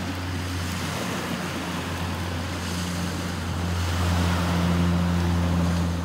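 A low, steady engine drone, swelling a little over the last couple of seconds, over a constant wash of surf and wind.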